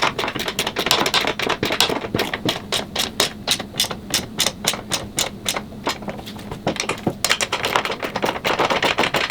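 Rapid, uneven run of sharp clicks and taps, several a second, from an Allen wrench and metal frame parts being worked while the stand's bolts are fitted.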